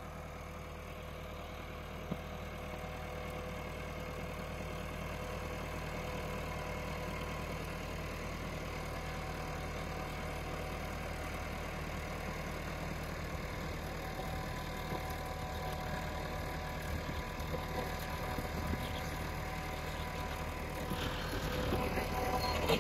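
Massey Ferguson 385 tractor's four-cylinder diesel engine running steadily while pulling a garlic digger through the soil, getting rougher and louder near the end.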